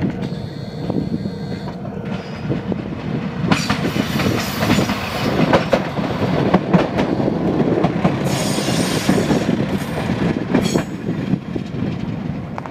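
Moka Railway diesel railcar passing close by, its wheels knocking over rail joints with a steady rolling rumble. Twice, once about four seconds in and again near the ninth second, a high metallic squeal from the wheels or brakes rises over it as the railcar slows for the station.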